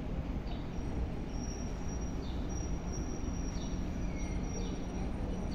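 Freight train of open wagons rolling slowly through a station, a steady low rumble with short, faint high-pitched squeaks recurring about once a second.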